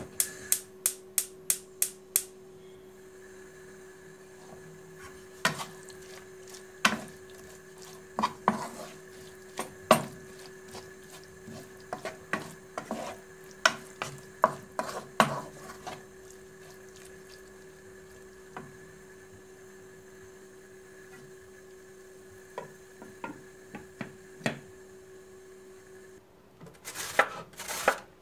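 A wooden spoon stirring diced chicken and onion in a nonstick frying pan: scattered knocks and scrapes against the pan over a steady hum, after a quick run of sharp clicks at the start. Near the end, a courgette is rubbed quickly on a metal box grater, several strokes a second.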